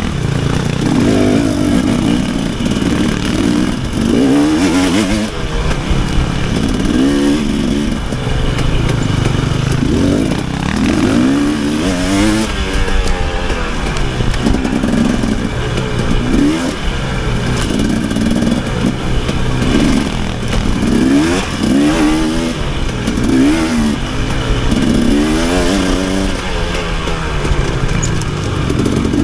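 Dirt bike engine revving up and falling back over and over as the throttle is opened and closed, its pitch rising and dropping every second or two.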